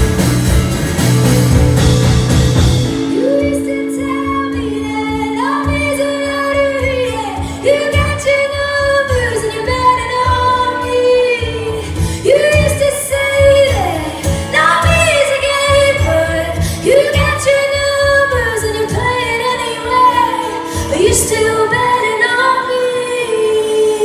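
Live music from a small band: a loud passage heavy in bass and drums breaks off about three seconds in. After that, a woman sings a melody over acoustic guitar.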